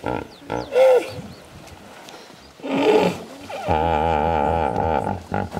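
Common hippopotamuses in a crowded pool calling: deep grunts and honks from many animals, with one long, wavering bellow lasting over a second about two-thirds of the way in.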